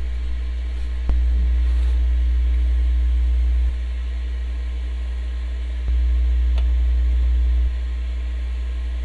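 Ninja indoor smart grill running on max heat: a steady low hum that alternately swells and eases every two seconds or so, with a faint click as each louder stretch begins.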